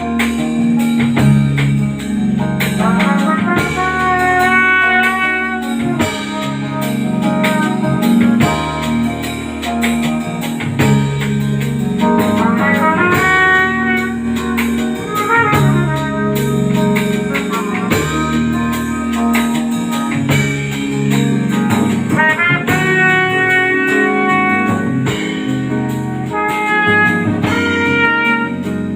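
A band playing a jazzy passage: a stepping bass line and drum kit under a lead melody.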